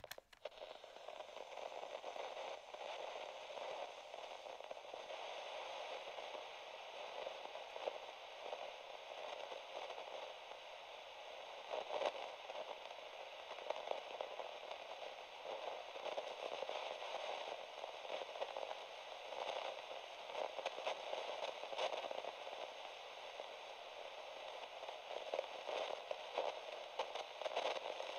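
Steady crackling, hissing noise with scattered sharper pops; two of the pops, about 12 and 22 seconds in, stand out above the rest.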